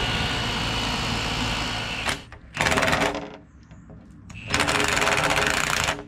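A machine engine runs steadily for about two seconds, then stops. A power drill then bores into a pebble-dashed wall in two bursts, a short one and a longer one of about a second and a half.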